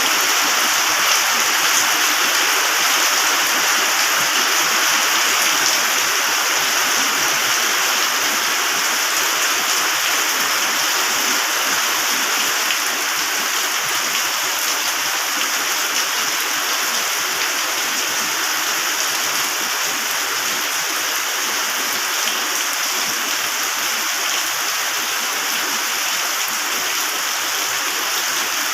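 Heavy rain falling as a steady, even hiss, easing very slightly over the stretch.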